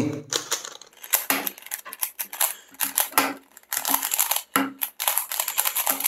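Plastic layers of a YuXin Treasure Chest 3x3 puzzle cube clicking and clacking as they are turned quickly by hand, in an irregular run of short turns.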